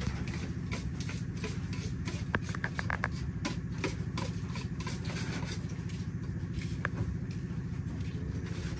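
Steady low hum of a running motor, with a few light clicks in the middle.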